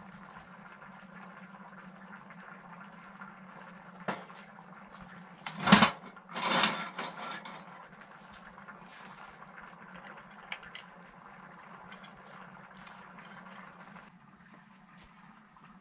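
Glass oil lamp being handled and lit: a sharp knock about six seconds in, followed by a second or so of glassy clinking and rattling, over a low steady hum and faint crackle from the wood stove fire.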